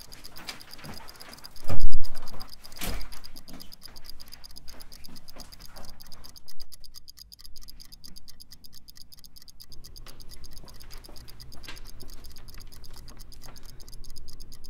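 Fast, steady clock-like ticking throughout, with a loud thump about two seconds in and a softer one about a second later.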